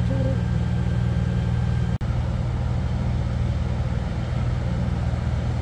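Engine of a bed-forming and plastic-mulch-laying machine running steadily at an even pitch, with a momentary break about two seconds in.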